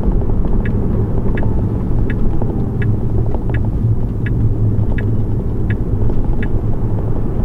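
Tyre and road rumble inside the cabin of a Tesla Model 3, an electric car with no engine note, at road speed. Over it, the turn-signal indicator ticks evenly, about once every 0.7 seconds.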